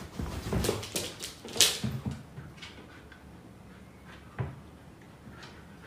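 A husky moving about on a wooden cabinet: a quick run of knocks and scuffles with one sharp loud knock, then a single knock a few seconds later. Dog sounds may be mixed in.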